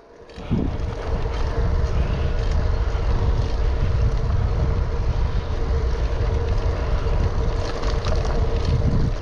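Wind buffeting the microphone of an action camera while riding a bicycle, a steady low rumble that starts abruptly about half a second in. A faint steady hum sits under it.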